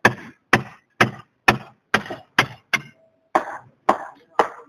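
Hammer driving nails: a steady run of sharp blows, about two a second, with a short pause about three seconds in.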